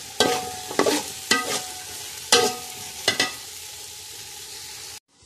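A slotted metal spoon scrapes and clanks against a stainless steel pot, stirring onions and tomatoes frying in oil over a steady sizzle. Some strokes leave the pot ringing briefly. The stirring stops after about three seconds, the sizzle carries on, and then the sound cuts off suddenly near the end.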